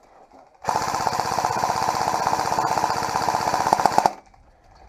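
Airsoft gun firing one long full-auto burst, a fast steady rattle of shots lasting about three and a half seconds that starts shortly after the beginning and cuts off suddenly. It is loud and close to the microphone.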